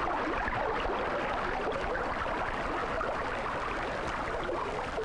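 Steady rush of stream water: an even noise with no distinct tones.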